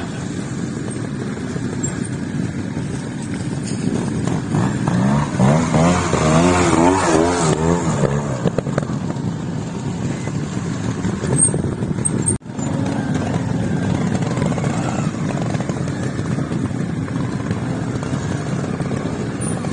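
Trials motorcycle engine running and being blipped, its pitch rising and falling several times about five to eight seconds in as the rider works the throttle through the section. There is a brief break near the middle.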